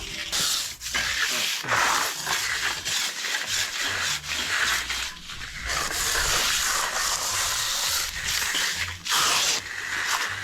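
Hand tools scraping and rubbing over wet concrete in repeated, uneven strokes as the fresh sidewalk is worked and floated.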